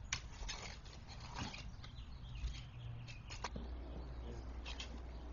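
Spade digging into soil and wood-chip mulch: a few irregular crunching, scraping strokes over a steady low hum.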